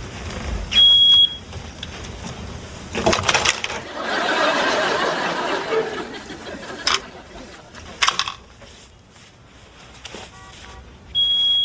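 Smoke detector beeping: two short, high, piercing beeps about ten seconds apart, one near the start and one at the very end. A few knocks and a stretch of noise come in between.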